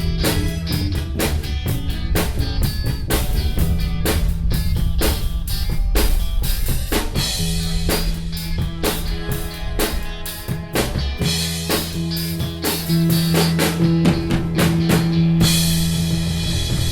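Live rock band playing an instrumental passage with no vocals, the drum kit prominent: a steady beat of bass drum and snare over held bass notes. A wash of cymbals comes in near the end.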